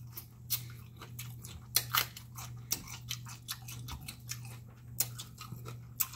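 A person chewing food close to the microphone: irregular sharp mouth clicks, several a second, with no words.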